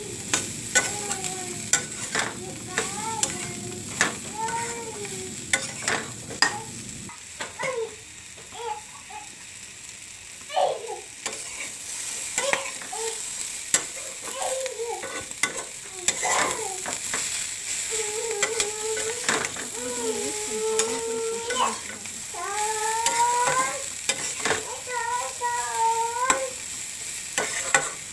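Mixed vegetables sizzling in oil in a metal kadai, with a spatula scraping and clicking against the pan as they are stirred. A high voice-like sound glides up and down at times in the background.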